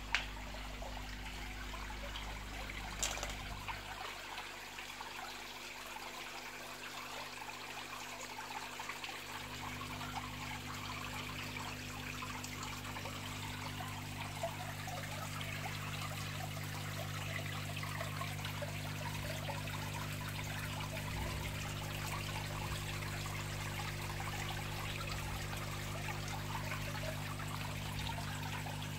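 Water trickling and splashing into a koi pond from its waterfall and filter return, with air-pump bubbles breaking the surface, over a steady low hum. A brief knock right at the start and another about three seconds in.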